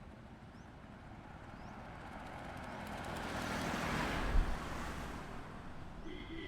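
A road vehicle approaches and passes by: tyre and engine noise swells to a peak about four seconds in, with a brief low thump at the loudest point, then fades. Near the end, a vehicle horn starts sounding a steady tone.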